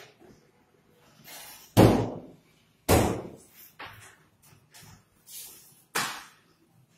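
Doors being slammed shut: three loud bangs, about two, three and six seconds in, each with a short ring, and a few lighter knocks between them.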